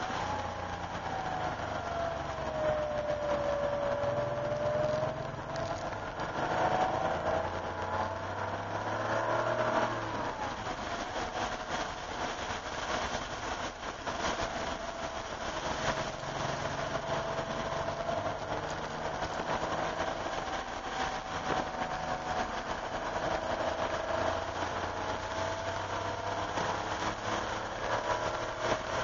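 1988 Porsche 911's air-cooled flat-six heard from inside the cabin on track, its pitch sinking in the first few seconds, climbing again, and rising once more near the end as the car slows and accelerates. A steady hiss runs underneath.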